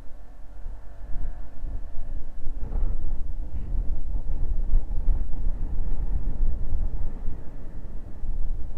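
A Honda Forza 125 scooter on the move: a gusty low wind rumble over the microphone, with the scooter's single-cylinder engine running underneath.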